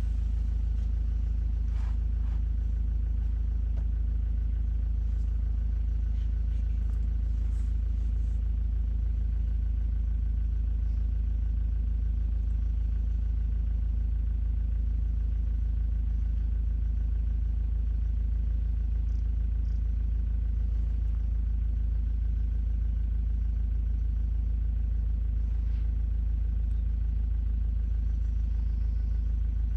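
Safari game-drive vehicle's engine idling, a steady low rumble that holds even throughout, with a few faint clicks.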